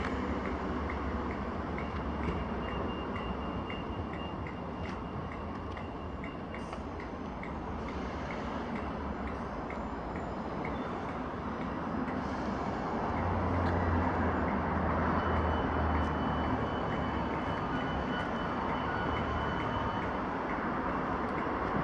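Class 320 electric multiple unit pulling away and running off into the distance, its motor and wheel noise fading into a steady rumble. Through the first half a faint, even ticking comes about three times a second.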